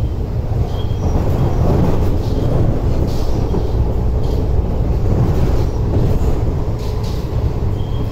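Cabin noise of a Metro Cammell EMU (MLR) electric train running along the track: a steady, bass-heavy rumble from its aging DC traction motors and wheels, with a few faint light ticks.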